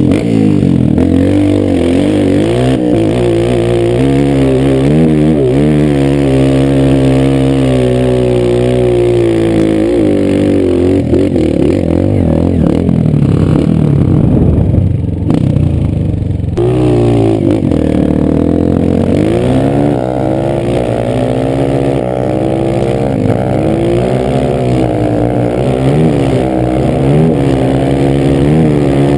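Air-cooled single-cylinder four-stroke trail bike engine, heard close up, revving up and down continuously as it is ridden through the gears, with a short break about sixteen seconds in.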